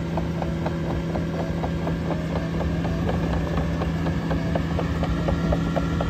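Cat AP655F tracked asphalt paver's diesel engine running with a steady hum as the machine moves, with rapid clicking, several clicks a second, over it.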